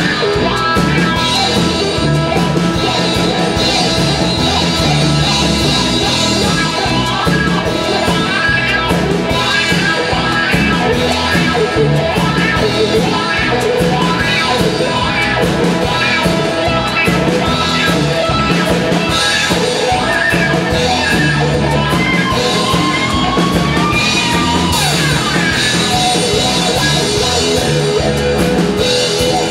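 Live blues-rock band playing an instrumental stretch: cigar box guitars over a drum kit. Sliding guitar notes come in about three quarters of the way through.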